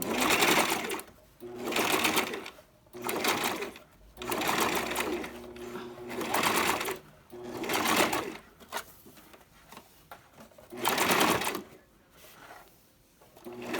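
Electric sewing machine stitching hair wefts onto a wig cap in stop-start runs of about a second each, with a longer pause about two-thirds of the way through.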